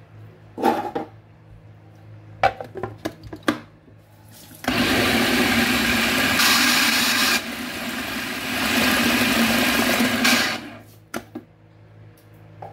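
Knocks and clicks as the food processor's bowl and lid are handled and fitted, then its motor runs for about six seconds, chopping peeled tomatoes coarsely. The motor noise drops partway through, picks up again and stops.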